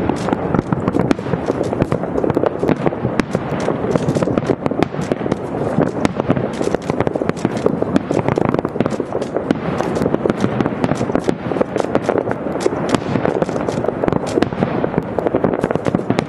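Aerial fireworks display: a continuous, dense barrage of shells bursting, with bangs and crackling overlapping without a break.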